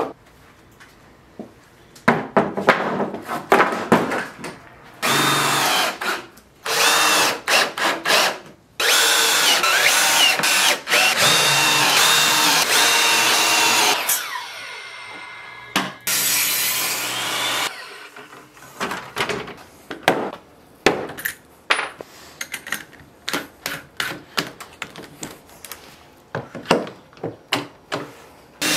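Electric power tool working wood in several bursts, one long run ending as the motor winds down, with knocks and clatter of wood and tools between bursts.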